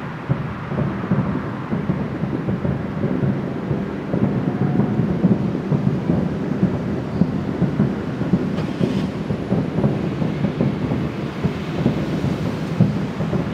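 Distant fireworks finale: many shell bursts overlapping into a continuous rolling rumble, like thunder.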